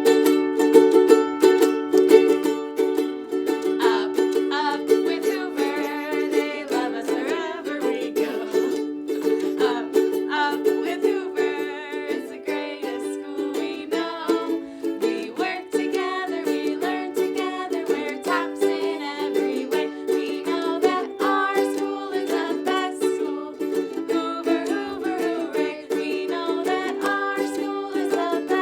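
A school song played on strummed chords from a small plucked string instrument, with a voice singing the melody from about four seconds in.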